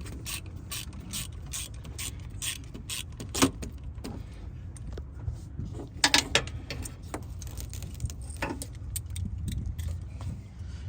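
Ratchet with a T25 Torx bit clicking repeatedly as it backs out the compressor's ground screw. There are louder knocks of metal about three and a half and six seconds in.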